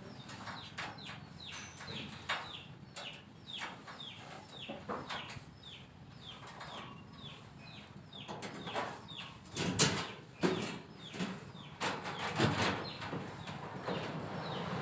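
Repeated high, falling chirps about two to three a second, like a chick or small bird peeping, with a few sharp knocks in the second half.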